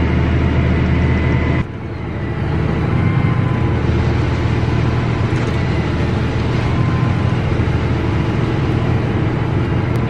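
Tractor engine running steadily under load, heard from inside the cab, while it drives a grain cart's unloading auger pouring shelled corn into a semi trailer. About one and a half seconds in, the sound changes abruptly and is briefly quieter, then settles back to the same steady running.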